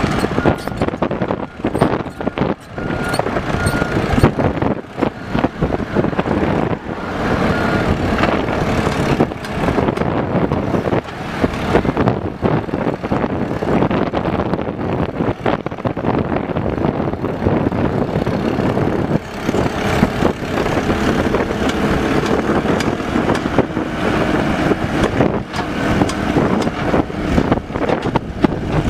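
Mini excavator's engine running under load as it digs, with frequent clanks and knocks. A short beeping alarm sounds a few times.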